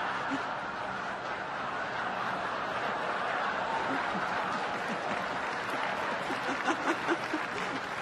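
A large crowd applauding steadily, slowly easing off, with a few sharper claps about seven seconds in.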